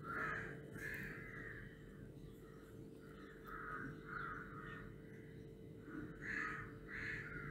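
Crows cawing faintly in short harsh calls, a few at a time, over a faint steady hum.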